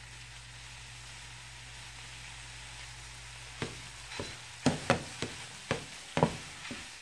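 Sausage and onions sizzling in a frying pan. From about halfway, a meat chopper tool strikes the pan about eight times in quick, uneven knocks as it breaks up the meat.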